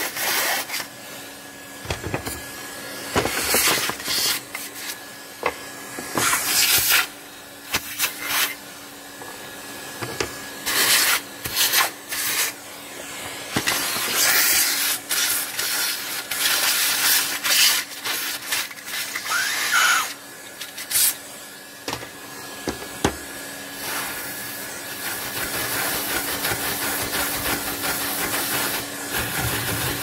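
Numatic Hetty canister vacuum cleaner running with a steady motor hum, broken by irregular short, loud bursts as its metal wand nozzle sucks up debris and scrapes against the table and toy parts.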